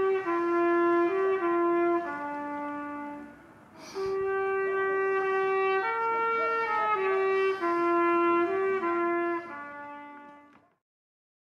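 Solo trumpet playing a slow melody of held notes, the same phrase twice with a short break between, then fading out.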